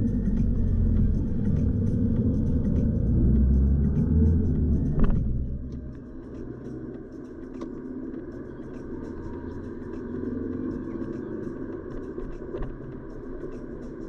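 A car driving, heard as a low, fluctuating road rumble that is loud for the first five seconds. After a sharp click about five seconds in it drops to a much quieter steady hum.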